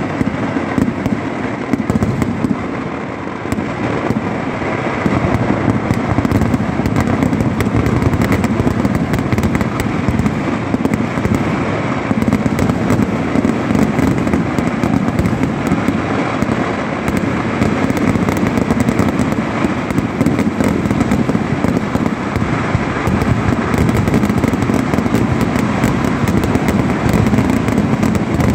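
Massed ground-fired firecrackers of a Kerala temple-festival vedikettu going off in one dense, unbroken barrage. The bangs run together into a continuous loud crackling rattle.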